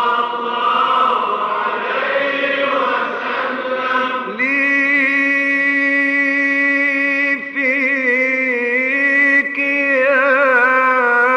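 Unaccompanied Islamic devotional chant (ibtihal). A group of male voices chants together for about four seconds, then a solo male munshid takes over, holding long notes with wavering melismatic ornaments.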